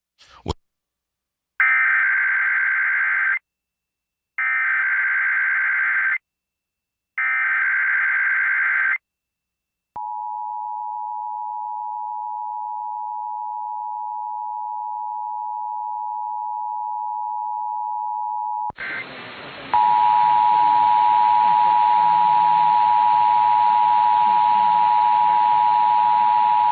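Emergency Alert System test: three short bursts of buzzing SAME header data, each about two seconds with a pause between, then the steady two-tone EAS attention signal for about nine seconds. About three quarters of the way through, a hiss of static cuts in and the two-tone attention signal starts again, louder, over the static.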